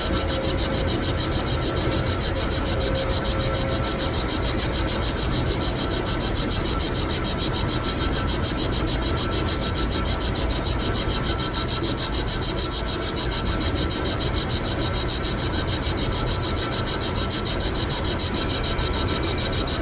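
Metal lathe running and cutting: a steady mechanical noise with a few faint steady whining tones over it.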